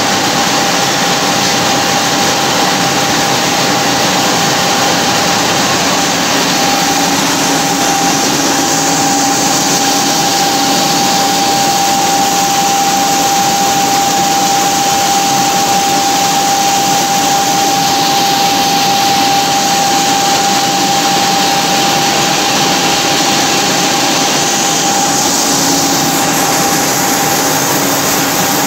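Vertical turret lathe running under cut, its tool turning a large rotating metal ring and peeling off chips: a steady, even machine noise with a steady high whine throughout.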